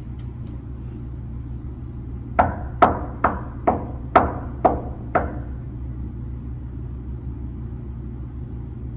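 Seven sharp knocks on a wooden door in quick succession, about two and a half a second, over a steady low room hum.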